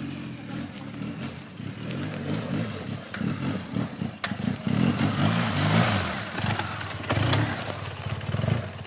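Large adventure motorcycle climbing a rutted dirt track and coming up close, its engine revving up and down as the throttle is worked over the ruts, growing louder as it nears. There is a sharp click about four seconds in.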